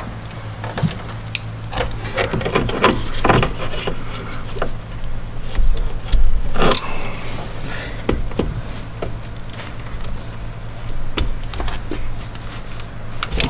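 Scattered clicks, knocks and rubbing as gloved hands work a transmission/oil cooler line's quick-connect fitting onto the lower port of an aftermarket radiator, with a louder clatter about six to seven seconds in. A steady low hum runs underneath.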